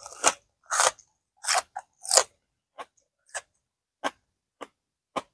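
Close-up crunching and chewing of raw spring onion. A few loud crisp crunches come in the first two seconds, then softer chewing crunches about every half second that grow fainter.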